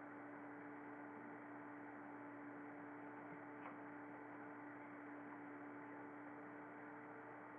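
Steady low electrical hum with faint hiss, and one faint tick about halfway through.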